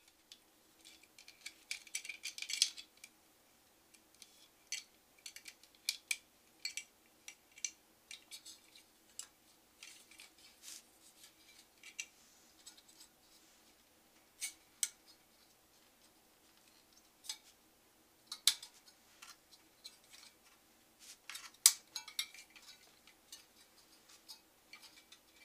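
Irregular sharp clicks and metallic ticks as a CPU fan and its wire fan clips are handled and fitted against the aluminium fins of a Zalman CNPS10X Optima tower heatsink, with a cluster of them about two seconds in.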